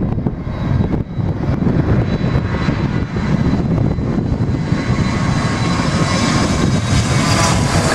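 Jet airliner's engines at takeoff power, a rushing roar that grows louder and brighter from about three seconds in as the aircraft rolls and approaches, with gusty wind buffeting the microphone.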